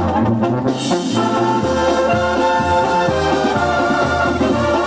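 Latin dance music played loud through a DJ's sound system, an instrumental stretch led by horns holding notes over a steady bass line. The top end drops out briefly in the first second, then the full band comes back in.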